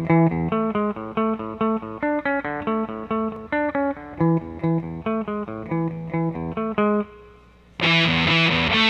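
Electric guitar playing a riff of clean single notes with the fuzz pedal bypassed. About 8 s in, the Gato Satanico fuzz pedal is switched on and the guitar comes back loud, thick and heavily fuzzed.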